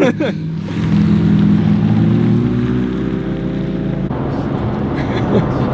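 Sports car engine pulling away, its note climbing steadily as the revs rise, then changing about four seconds in.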